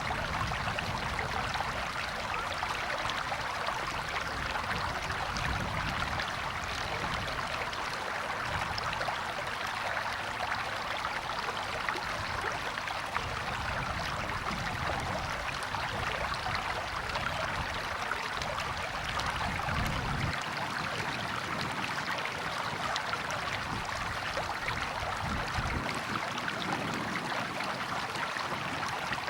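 River water flowing over rocks in a steady, even rush, with low rumbles coming and going underneath.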